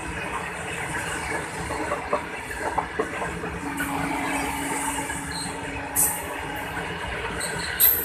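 Steady rumble and wheel clatter of a long freight train's open box wagons, loaded with coal, rolling past on the rails. There are scattered sharp knocks, a faint steady hum for a few seconds in the middle, and two brief loud clanks near the end.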